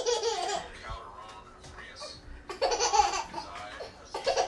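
Young child laughing in two bursts, one at the start and another about two and a half seconds in.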